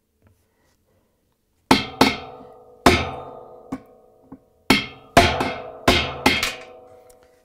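Mallet striking a chisel against the rust-seized pulsator insert on an LG washer's drive shaft, cutting it off: about eight sharp blows, starting nearly two seconds in, each followed by a ringing tone that dies away.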